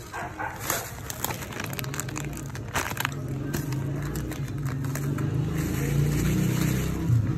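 Plastic sugar bag crinkling and rustling as brown sugar is shaken out of it, the crackling mostly in the first three seconds. A steady low hum builds from about two seconds in and grows louder.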